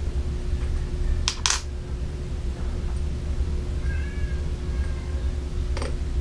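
Two sharp clicks close together about a second and a half in as small metal parts of a PCP air rifle are handled, then a faint wavering high-pitched call a little past the middle and another click near the end. A steady low hum runs underneath.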